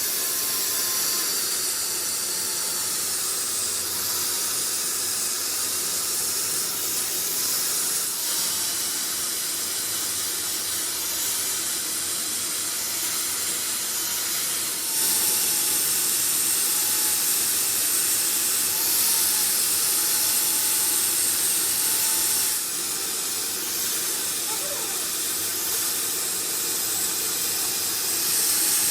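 Steady high-pitched hiss of a pressurised jet, stepping louder about halfway through and easing off again a few seconds later.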